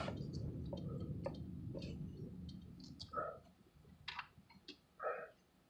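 Faint low rumble of a car creeping forward, heard from inside the cabin, fading away over the first three seconds. After that come a few scattered faint clicks and ticks.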